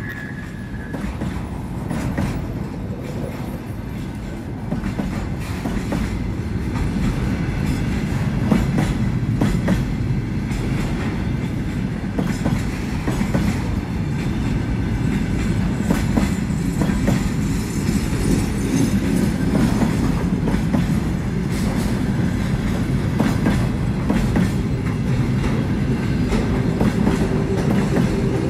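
Container flatcars of a freight train rolling past: a steady heavy rumble with the clickety-clack of wheels over rail joints, growing a little louder after the first few seconds.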